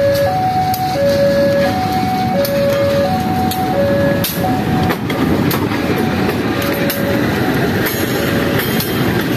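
A CC 203 diesel-electric locomotive runs slowly past, its engine rumbling, with occasional clanks from the wheels on the rails. Over it sounds a level-crossing warning alarm, alternating between two tones a little under a second each, which grows fainter in the second half.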